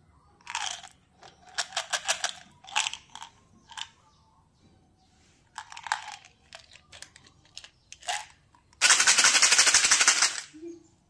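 Small plastic bottle of hard candy tablets being opened and handled, with clicks and short rattles, then the tablets tipped out into a palm with a clatter about six seconds in. Near the end a plastic candy container is shaken hard: a loud, dense rattle lasting about a second and a half.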